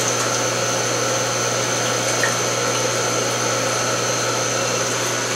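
Steady hum of an aquarium air pump with the constant bubbling hiss of the air-driven sponge filter in a tilapia fry tank.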